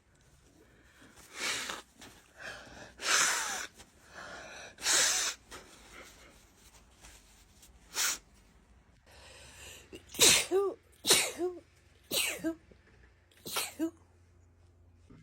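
A woman in a sneezing fit: about nine sneezes, a second or two apart at first, then coming faster near the end.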